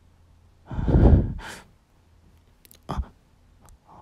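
A woman breathing heavily: a long, loud breath about a second in, then a shorter breath sound about three seconds in.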